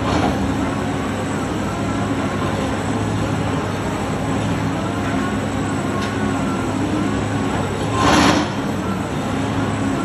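Heavy machinery running steadily with a low hum, with a short loud hiss about eight seconds in.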